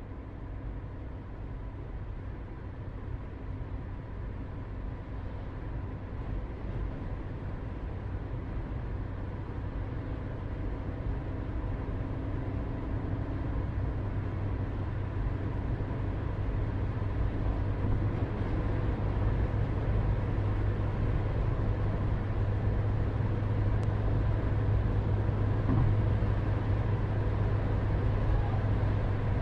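A steady, low mechanical rumble with a faint hum, growing gradually louder.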